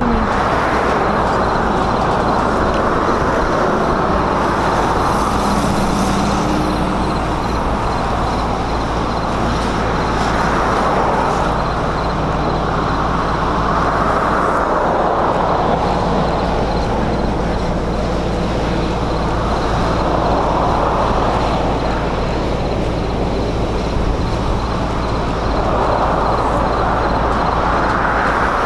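Steady road traffic noise, swelling every few seconds as cars pass, over a low steady hum.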